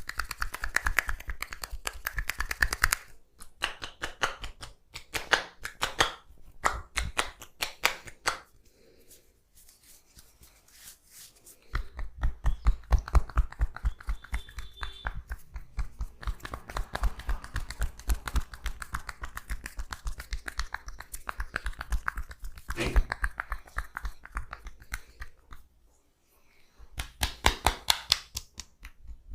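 Massage hand tapping: fast runs of sharp taps and pats of hands on skin, with a pause of about three seconds about a third of the way in.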